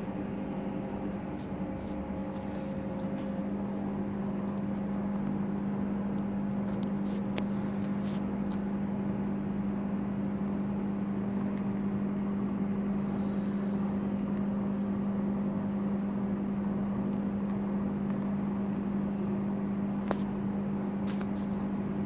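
Steady mechanical hum from a running room appliance, even in pitch and level, with a few faint clicks.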